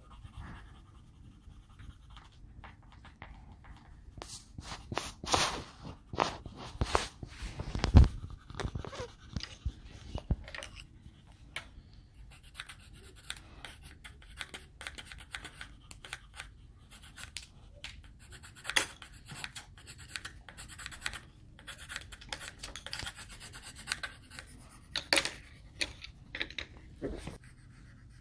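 Pencils scratching back and forth on paper as a picture is coloured in, with scattered taps and a sharp knock about eight seconds in.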